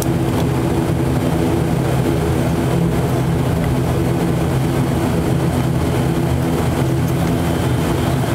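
Inside the cabin of an ATR 72-500 taxiing on the ground: the twin turboprop engines and propellers hum steadily, a low even drone with several held tones.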